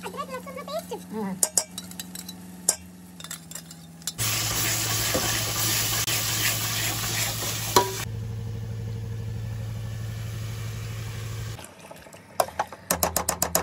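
Steel ladle scraping and knocking against an aluminium pot while curry masala and chicken are stirred. For several seconds in the middle the food sizzles loudly as it fries, then the sizzle cuts off suddenly.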